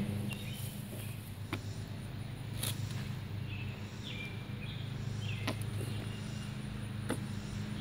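Steady low hum from an outdoor air-conditioner unit running, with faint short chirps now and then and a few light clicks.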